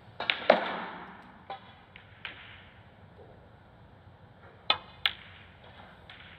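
Snooker cue tip striking the cue ball, then the cue ball clicking into the green about a third of a second later: two sharp clicks late on. About half a second in there is a louder knock that rings on for about a second, with a couple of faint taps after it.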